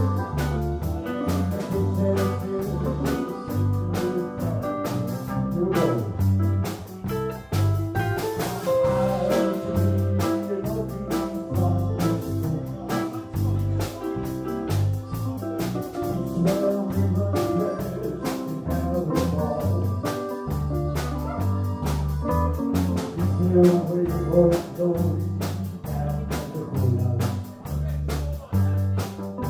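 Live band playing a country song on drum kit, electric bass, keyboard and electric guitar.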